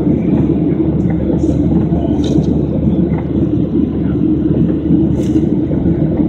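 Steady, loud cabin noise of a Boeing 737 climbing after takeoff, heard from a seat over the wing: constant engine drone and airflow rumble.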